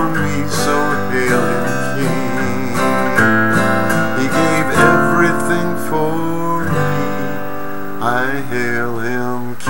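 Acoustic guitar strummed in steady chords, with a man's voice holding a few wordless, wavering notes over it in places.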